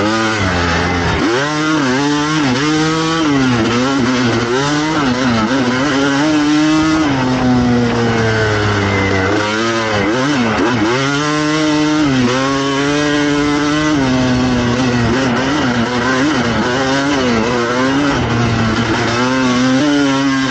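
Suzuki RM250 single-cylinder two-stroke dirt bike engine with an FMF pipe, ridden hard: it revs up in pitch again and again, dropping between pulls as it shifts and chops the throttle, with one longer held pull just past the middle.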